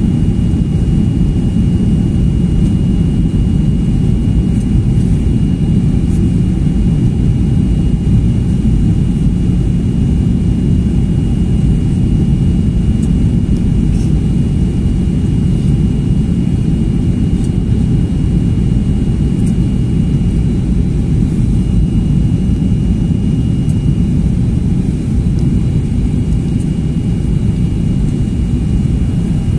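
Boeing 737-800 jet cabin noise heard from inside the cabin: a steady, deep roar of CFM56 engines and airflow, with a thin, steady high whine above it.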